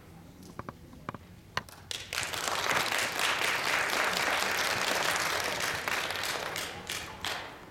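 Audience applause: a few scattered claps and knocks, then a burst of clapping about two seconds in that holds for several seconds and dies away near the end.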